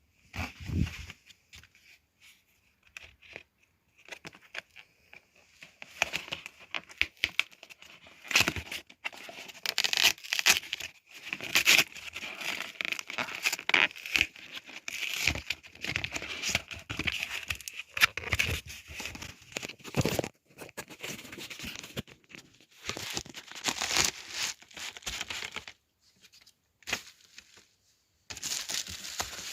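Packaging being torn open and crinkled as a tripod is unboxed: irregular rustling, tearing and crackling with sharp clicks. It is sparse at first, near-continuous from about six seconds in, with brief pauses near the end.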